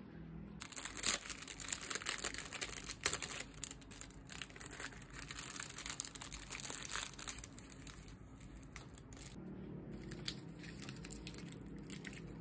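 Plastic packaging crinkling as it is handled: a clear plastic bag and wrapped sweets rustled in the hands, with a brief lull about two-thirds of the way through.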